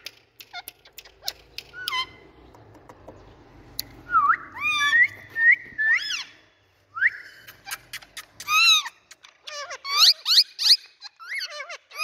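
Indian ringneck parakeets whistling and chirping in short calls: pitch-gliding whistles and a held note, scattered soft clicks, one harsh squawk, then a quick run of rising chirps near the end.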